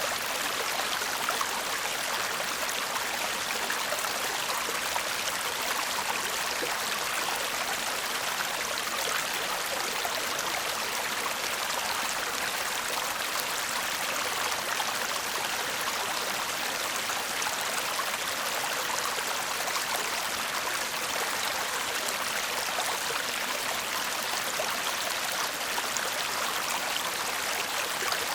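Shallow stream murmuring and babbling over stones, a steady rush of water with fine trickling detail.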